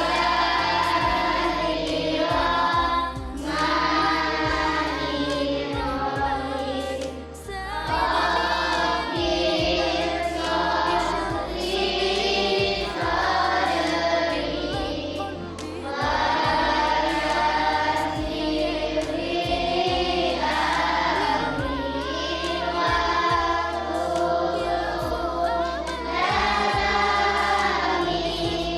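A group of children singing together in unison, in phrases a few seconds long: a class singing the prayer that opens a lesson.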